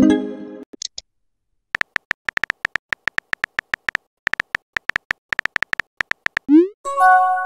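Texting-app sound effects: a short electronic chime at the start, then rapid synthetic keyboard tap clicks, several a second, as a long message is typed. Near the end comes a quick rising pop as the message is sent, then a held electronic chord of steady tones.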